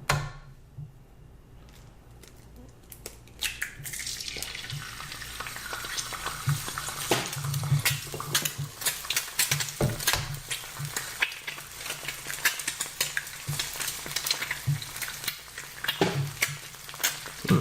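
A few light knocks, then about four seconds in eggs start to sizzle in a hot electric skillet: a dense, steady crackling with frequent pops.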